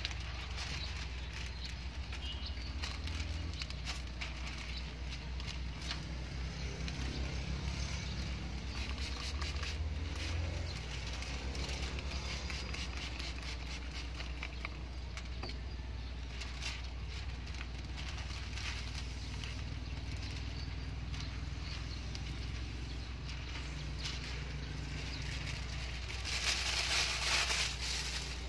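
Crinkling and crackling of a plastic window-tint film sheet being handled and smoothed against wet car window glass, over a steady low hum. Near the end comes a short hissing burst of spray from a hand spray bottle wetting the glass.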